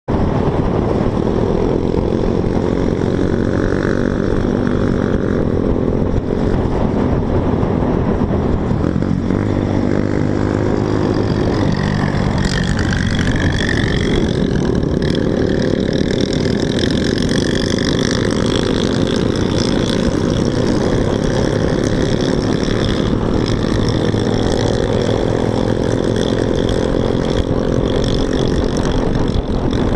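Scooter engine running under way while riding, its pitch rising and falling with the throttle, with wind rushing over the onboard microphone.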